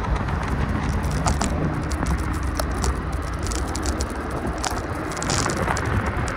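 Steady rumble and road noise of a vehicle in motion, with many small rattles and clicks scattered through it.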